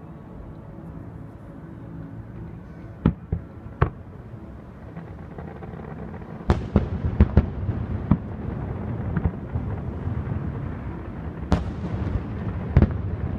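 Fireworks display: a few sharp bangs about three and four seconds in, then from about six seconds a swelling rumble with crackling and a rapid run of bangs, and two strong bangs near the end.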